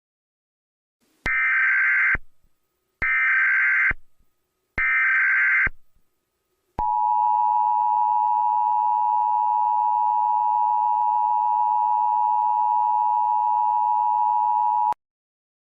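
Emergency Alert System alert signals: three short bursts of digital data tones (the SAME header), then the steady two-tone attention signal held for about eight seconds. Together they mark the start of an emergency alert broadcast.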